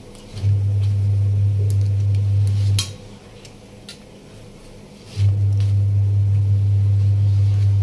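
A loud, steady low hum comes on twice, each time for about two and a half seconds, with a few light clicks of a steel spatula against a steel plate in between.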